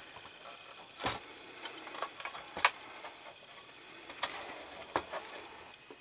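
Hands handling a plastic and die-cast model car chassis: a few scattered light clicks and taps, the sharpest about a second in.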